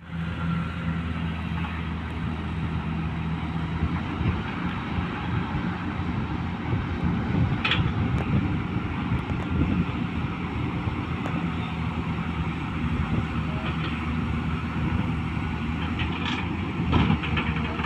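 Long-boom excavator's diesel engine running steadily, with a few sharp clanks, one about eight seconds in and two more near the end.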